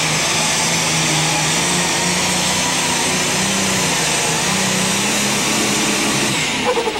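International Harvester 3688 super stock diesel pulling tractor with multiple turbochargers, running loud and steady at full power while dragging the sled, its low engine note wavering under load. The high part of the noise drops away near the end as the run finishes.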